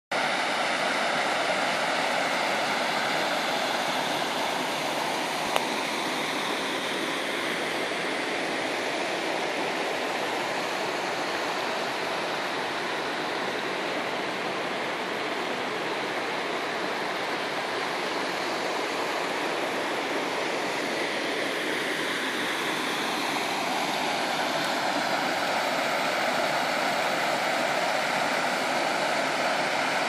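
Small waterfall cascading over rock ledges into a creek pool: a steady rush of water, a little softer midway and fuller again near the end.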